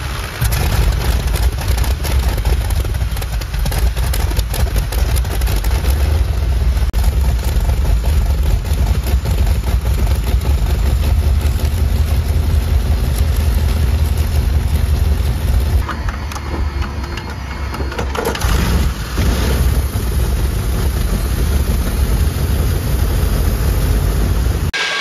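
Wright R-3350 Duplex-Cyclone 18-cylinder twin-row radial aero engine starting up, catching amid heavy smoke, then running loud and rough. The sound dips briefly about two-thirds of the way through, then runs loud again.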